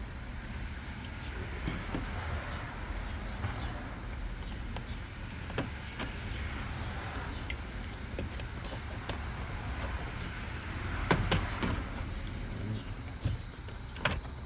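Screws being driven into a plastic lower bumper valance: scattered clicks, scrapes and knocks of the tool and trim, with a louder cluster of knocks about eleven seconds in, over a low steady rumble.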